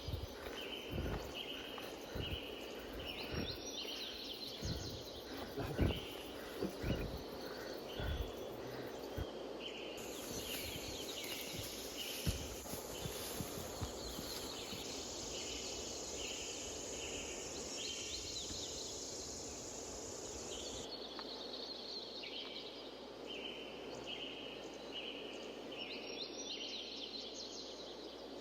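Short, high chirps of an animal call repeating about once a second. Low thumps of wind or handling on the microphone come through in the first third.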